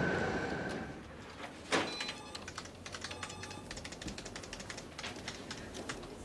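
Computer keyboard typing: a steady patter of fine key clicks. A single sharp thump comes a little under two seconds in, and a fading street noise runs under the first second.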